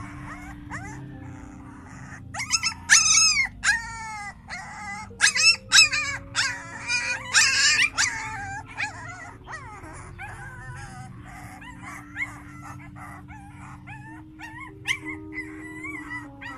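A litter of puppies yelping and squealing as they play-fight, a rapid run of short cries that fall in pitch, thickest from about two seconds in to the middle, then thinning to occasional quieter whines.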